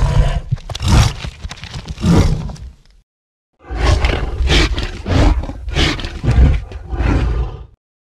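Custom King Kong giant-ape sound effects: growls and roars in short repeated bursts, in two separate clips with a brief silence between them about three seconds in.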